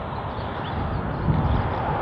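Steady distant rumble of a diesel locomotive hauling a loaded coal train as it approaches, growing a little louder in the second half.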